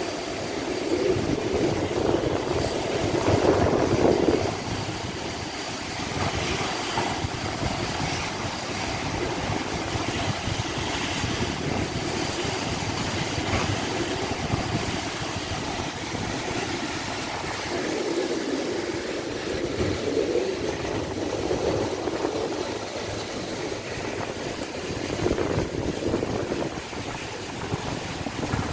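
Tropical storm wind gusting and heavy rain falling, a steady rushing with rumbling gusts that swell and ease, loudest in the first few seconds; the wind buffets the microphone.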